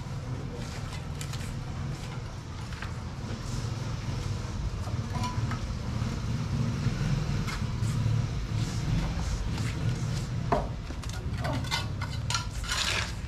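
Scattered metal clinks and scrapes of hand tools over a steady low rumble, busier in the second half.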